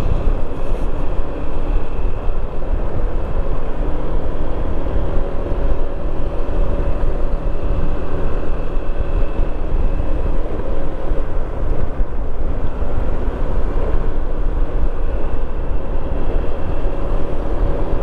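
Riding a 2015 Honda PCX150 scooter at road speed: heavy wind rumble on the microphone, with the steady drone of the scooter's single-cylinder engine and belt drive underneath.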